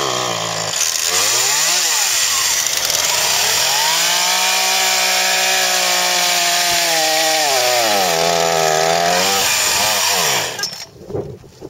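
Gas chainsaw running, its pitch rising and falling with the throttle, held at high speed for a few seconds as it cuts through the trunk of a Christmas tree, then slowing and shutting off about ten and a half seconds in.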